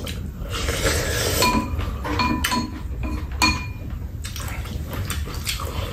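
Chopsticks and spoons clinking and scraping against ceramic bowls and a metal pot while two people eat, with several short ringing clinks in the middle.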